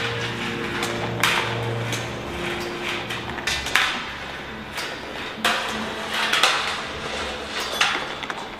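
Sound installation in a large hall giving irregular sharp metallic knocks and clanks, about five of them a second or two apart. Steady low humming tones run under them for the first three seconds or so, then stop.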